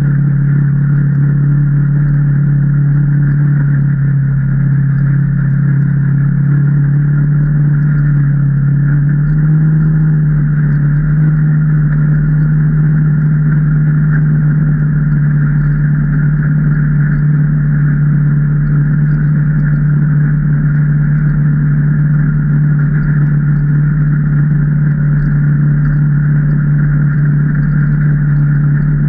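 Can-Am Maverick Trail 800 side-by-side's Rotax V-twin engine running while driving, a steady low drone that steps up slightly in pitch about ten seconds in.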